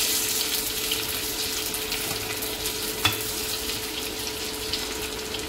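Whole boiled potatoes sizzling steadily as they fry in hot oil in a kadhai, with a spatula stirring them. There is a single sharp knock about three seconds in.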